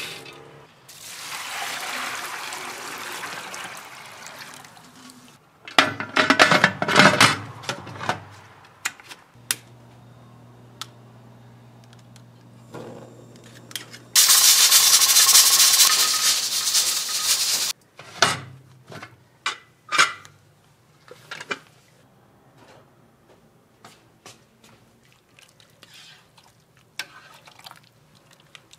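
Bungeoppang being made by hand: a stretch of rushing noise, a quick run of metal clatter and clicks, a steady low hum, then a loud hiss lasting about three and a half seconds, followed by scattered light taps and clicks.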